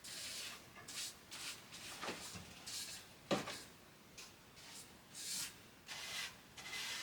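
Faint handling noises: scattered knocks, clicks and rustling, with one sharper click a little over three seconds in.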